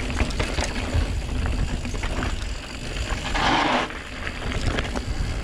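Santa Cruz Megatower enduro mountain bike rolling fast down a dirt and gravel trail: a steady low rumble of tyres on the ground with many small clicks and rattles from gravel and the bike. There is a short hiss about three and a half seconds in.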